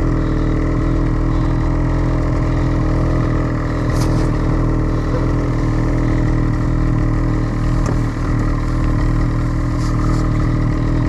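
Turbocharged 850 two-stroke snowmobile engine running at a steady, even speed with no revving, as the sled goes down a steep slope under light throttle.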